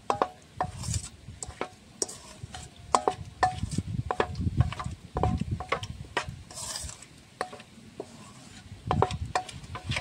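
Wooden spatula stirring and scraping a thick spice mixture around a stainless steel bowl, with irregular knocks of the wood against the metal, several a second, each giving a short metallic ring.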